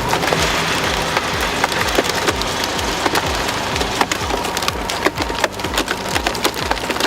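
Wood cracking and splintering in many sharp snaps and crackles over a steady, regular low pulsing.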